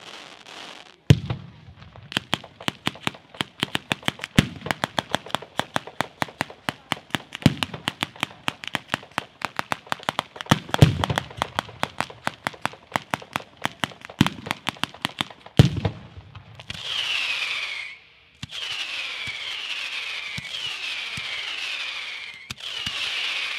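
Fireworks battery firing a rapid string of sharp cracking reports, several a second, with a heavier boom every few seconds, for about fifteen seconds. The reports then stop and give way to a sustained hiss with repeated falling whistles from ground fountains.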